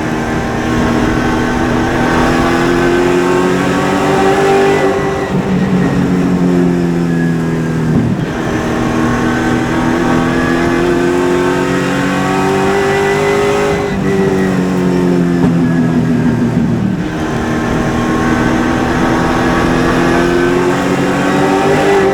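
A super late model race car's V8 engine at racing speed. Its pitch climbs steadily under full throttle, then drops off sharply as the driver lifts for a corner, several times in a row, lap after lap.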